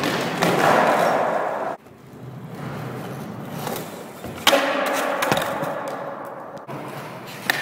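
Skateboard wheels rolling hard on ramp and floor, cut off abruptly a little under two seconds in. The rolling builds again and is broken about four and a half seconds in by a sharp, loud clack of the board and rider coming down, followed by a lighter knock, in a failed landing that leaves the rider on the floor.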